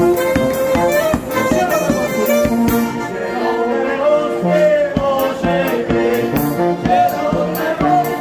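Live folk wedding band playing a lively tune: tuba and accordion over a bass drum with cymbal keeping a steady, quick beat.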